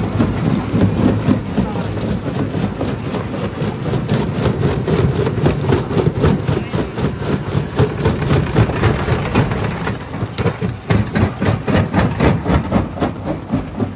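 Stone jaw crusher running under load: a steady low machine rumble with a dense, irregular run of sharp cracks and knocks as rock breaks between the jaws.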